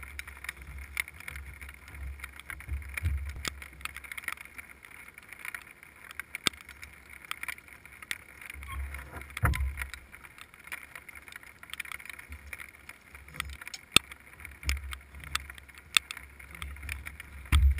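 Scattered faint knocks and taps on the canoe hull that the camera is mounted on, with intermittent low rumbling; the loudest knock comes about nine and a half seconds in.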